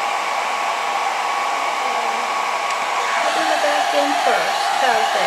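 Handheld electric hair dryer running steadily, blowing air.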